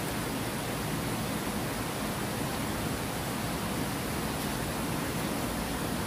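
Water pouring steadily over a low concrete weir into a pool: a constant, even rush of falling water.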